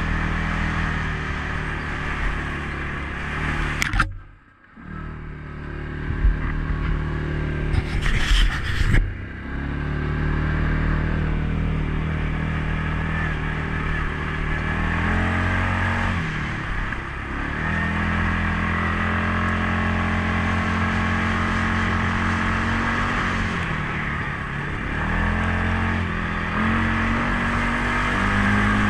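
CFMOTO CForce 500S ATV's single-cylinder engine running under throttle, its pitch falling and rising a few times with speed. About four seconds in, a sharp knock comes and the engine sound drops away for about a second. A cluster of clattering knocks follows around eight seconds.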